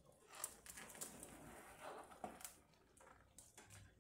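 Faint soft plops, knocks and scraping as cooked potato pieces are tipped into a pot of cream sauce, dying away near the end.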